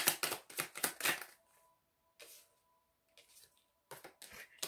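Tarot cards being shuffled in the hands: a quick run of crisp card clicks for about the first second, then a few soft taps and flicks as cards are handled and one is laid down on a wooden table near the end.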